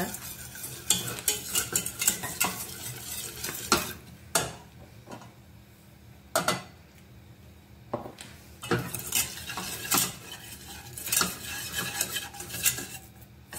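Wire whisk clicking and scraping against a stainless steel saucepan as flour is whisked into melted butter to make a roux. Rapid strokes in the first few seconds, a quieter pause with only a couple of knocks in the middle, then quick whisking again.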